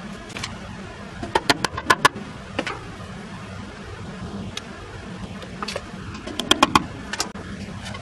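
Quick runs of sharp, light taps from small metal hand tools working at the nail holes of a wooden bellows paddle: about five a little over a second in and about four more near the end, over a steady low hum.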